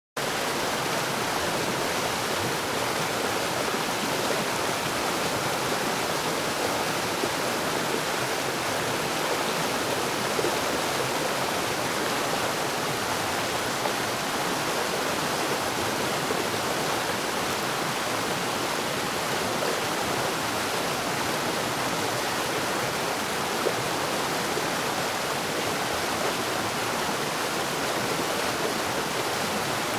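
Stream rapids: fast-flowing water rushing in a steady, unbroken wash.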